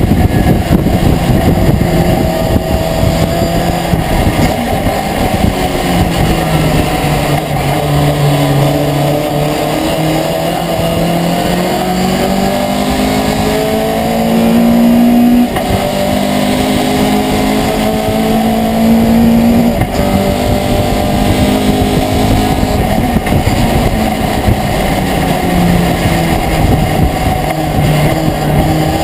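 Racing pickup truck's engine heard from inside the cockpit under race load, its pitch climbing slowly through long pulls and dropping sharply at gear changes, about halfway through and again a few seconds later.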